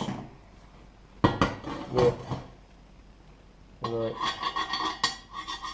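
A pointed tool scraping and knocking welding spatter balls off a welded metal mold: a couple of sharp metal knocks a little over a second in, then quick repeated scraping from about four seconds in.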